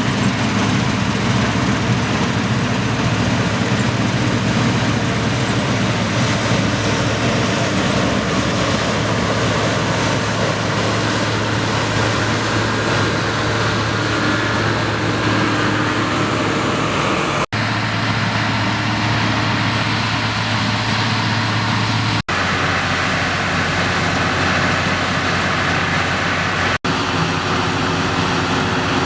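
Deutz-Fahr TopLiner 8 XL combine harvester at work, its engine and threshing machinery running steadily at a constant note. The sound breaks off abruptly three times in the second half as the shot changes, each time carrying on at a slightly different pitch.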